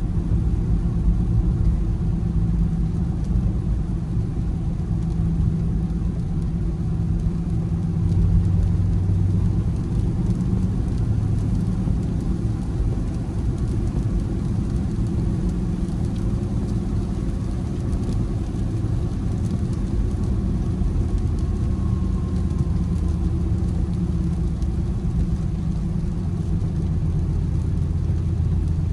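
Range Rover Sport SVR's supercharged V8 and road noise heard from inside the cabin while cruising: a steady low drone, swelling briefly about eight seconds in.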